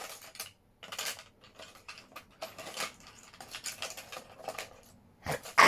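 Small plastic and metal pieces clattering and clicking as disposable-camera flash boards are rummaged through: a run of irregular light knocks and rattles.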